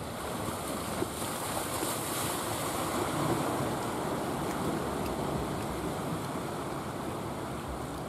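Steady wash of sea waves with wind buffeting the microphone.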